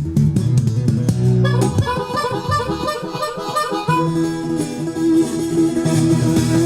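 Blues harmonica playing held and bending notes over a picked acoustic guitar in an instrumental break.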